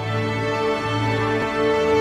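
Intro theme music: held chords over a low bass note that pulses about once a second, growing louder.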